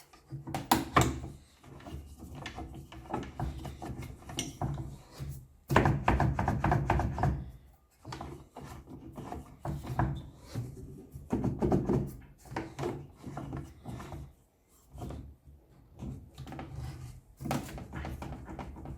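Wooden parts being handled, with irregular knocks and wood rubbing and scraping on wood, and a longer, louder stretch of scraping about six seconds in.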